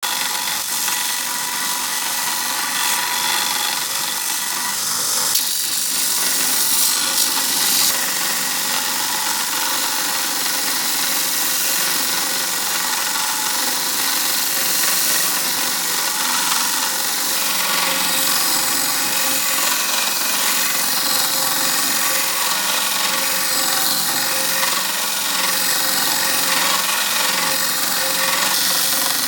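A power tool running steadily with a rough, hissing grind, as when steel is worked on an abrasive.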